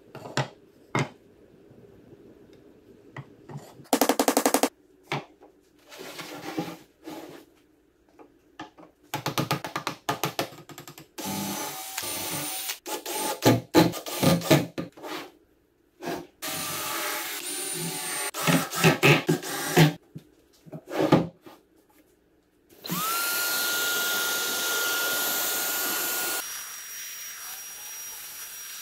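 A cordless drill running in short bursts on a pine table frame, then an electric HomeRight paint sprayer starting with a rising whine and running steadily, easing to a softer hiss near the end.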